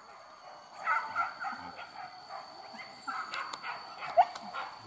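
Hunting dogs barking and yipping in quick, overlapping calls, with one sharp rising yelp about four seconds in.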